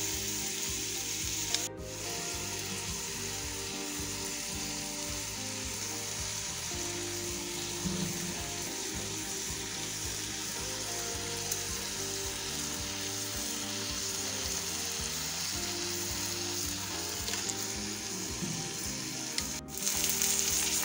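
Pomfret coated in green masala sizzling steadily in a little oil on a nonstick tawa over a low flame, as its first side fries. The sizzle breaks off briefly twice, about two seconds in and near the end.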